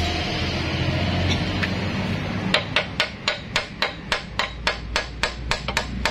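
Hammer striking metal on a Yanmar TF-series diesel engine during disassembly, a quick even run of blows at about four a second that starts about two and a half seconds in.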